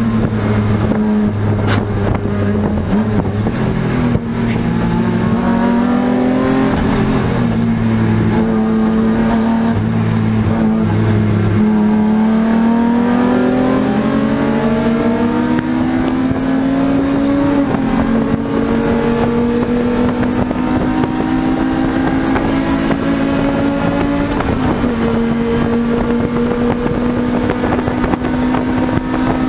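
BMW E36 M3 race car's straight-six engine running hard at racing speed, heard from inside the cockpit. Its pitch climbs slowly and drops suddenly three times.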